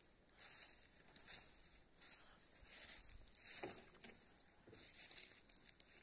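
Faint footsteps crunching and rustling through dry fallen leaves, an irregular run of short crackles.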